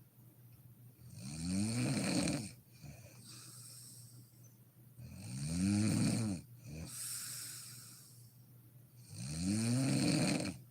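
A sleeping woman snoring: three long snores on the in-breath, about four seconds apart, each rising in pitch. Softer, breathy exhales come between them.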